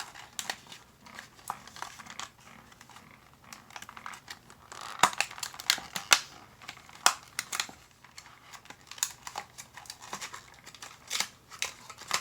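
Toy packaging crinkling and rustling, with irregular sharp clicks and crackles, as it is handled and packed away.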